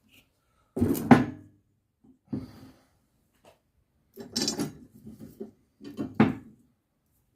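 Metal clanks and knocks from steel parts and tools being handled during a repair, in four short bursts, the loudest about a second in.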